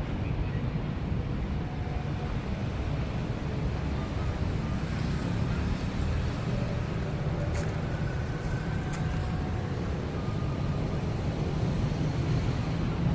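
Road traffic: a steady low rumble of motor vehicles, with a couple of brief high hisses about halfway through.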